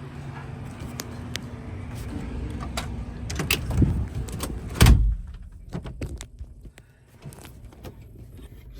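Clicks and knocks of a truck door being handled, with a loud slam about five seconds in, over the steady hum of an idling engine that drops away after the slam.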